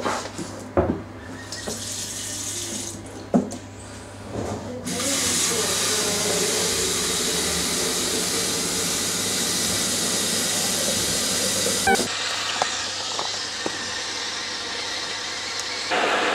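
A few knocks and clatters, then a kitchen tap runs water into an electric kettle to fill it; the flow stops abruptly with a click about twelve seconds in.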